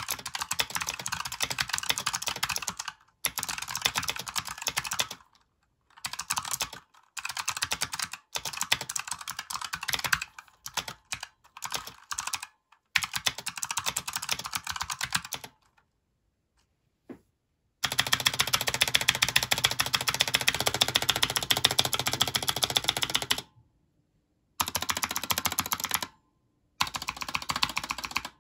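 Fast typing on a Razer Huntsman Quartz keyboard's light opto-mechanical switches: rapid runs of key clicks broken by short pauses. There is a near-silent gap a little past halfway, then the longest and loudest run of clicking.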